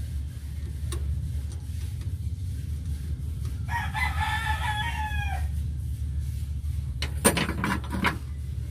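A rooster crows once, a single call of about a second and a half starting a little under four seconds in. Near the end comes a short clatter of sharp clicks, over a steady low hum.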